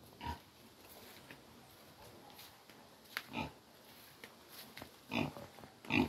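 Domestic pig grunting: a few short grunts a second or two apart.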